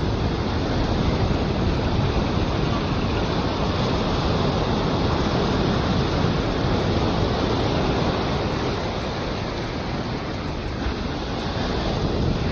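Sea surf washing onto a beach: a steady rush of breaking waves that eases a little about ten seconds in and builds again near the end.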